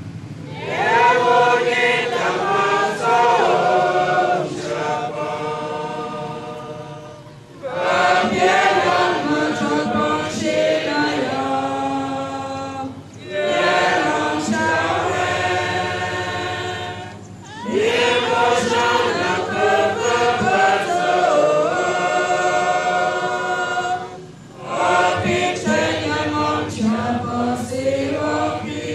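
Church congregation singing a hymn together without instruments, in phrases of a few seconds with short breaks between them.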